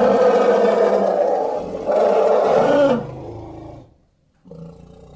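Elephant roaring calls: one loud call gives way to a second about two seconds in, which falls in pitch at its end and fades out. After a brief silence, a lower call begins near the end.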